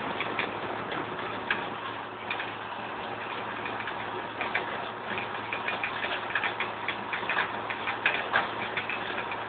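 Tractor engine running steadily while the towed seed drill rattles and clicks irregularly over the stubble during sowing.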